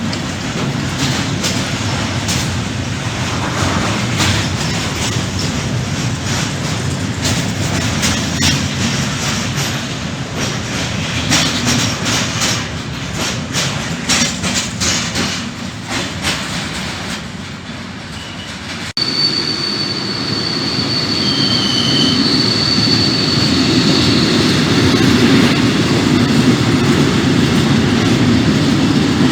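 Freight train rolling past, its wagon wheels clicking over rail joints in a dense stream. After an abrupt break about two-thirds through, a louder train rumble follows, with a high steady wheel squeal lasting a few seconds.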